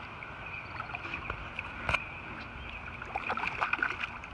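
Light knocks and clicks of tackle and hull in a small fishing boat over a steady outdoor hiss, with one sharper click about two seconds in and a run of small clicks after three seconds, as a hooked bass is worked out from under the boat.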